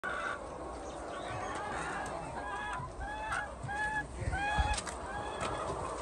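A flock of laying hens calling: a run of short, rising-and-falling squawks, about two a second, over the general noise of the flock.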